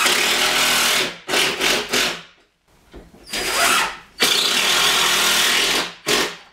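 Cordless impact driver running in bursts, driving 2-inch self-drilling cabinet screws through the wooden face frames of two clamped cabinets. Several short runs, with the longest, nearly two seconds, after about four seconds.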